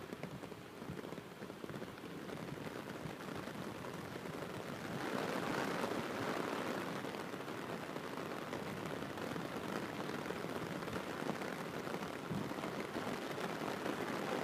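Heavy rain falling, a steady hiss of rain that grows louder about five seconds in and then holds.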